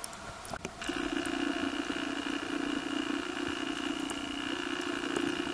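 Steady hum of a boat's engine heard through the water by an underwater microphone, cutting back in less than a second in, with a few faint clicks.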